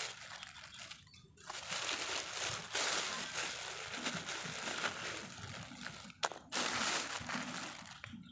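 Thin plastic bag crinkling and rustling as hands work inside it, with a couple of brief pauses.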